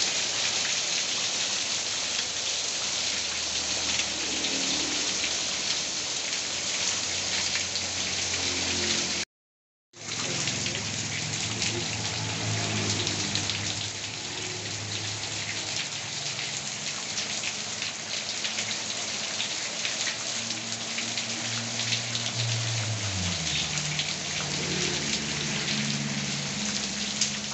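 Heavy rain falling steadily, a dense patter of drops hitting a surface, with a faint low hum underneath. The sound cuts out completely for a moment about nine seconds in.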